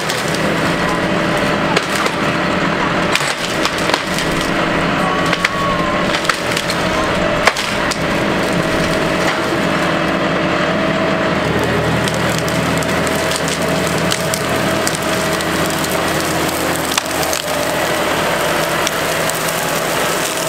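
John Deere 5075E tractor's diesel engine running steadily under load while its grapple crushes and drags dead brush and tree limbs, with branches cracking and snapping again and again. A deeper engine drone comes in a little past halfway.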